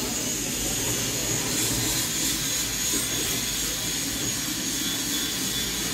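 Electric sliding-gate motor running steadily with a thin high whine, driving the curved gate along its track.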